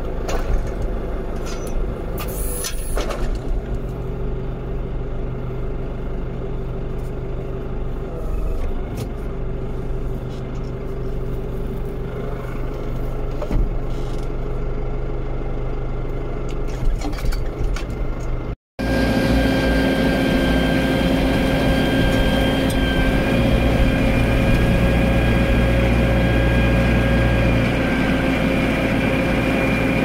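SAME Silver tractor engine running steadily, heard from inside the cab. After a cut about two-thirds of the way through, it runs louder, with a steady whine over the engine note.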